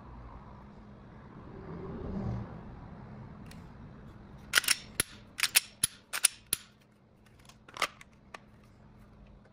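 Sharp clicks of a Glock 43X pistol being handled and snapped into its holster: a quick run of about eight clicks over two seconds starting about four and a half seconds in, then one more click near the end. A soft rustle of handling comes about two seconds in.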